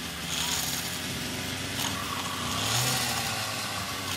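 Toy forestry vehicle's engine and buzz-saw sound effect, a continuous motor-like running with a few louder hissing surges, as its circular saw arm is worked against a toy tree trunk.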